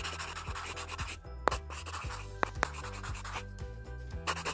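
Alcohol sketch marker scratching across paper in short strokes, with a few sharp clicks, over background music with a steady low bass line.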